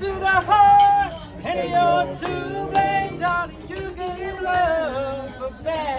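A man singing over a backing music track, with held notes and sliding pitch.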